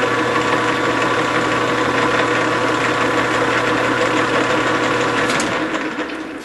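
Grizzly G4003 metal lathe running steadily, with a mechanical drone and a constant gear whine. About five seconds in the motor hum stops and the lathe winds down, ending with a sharp click.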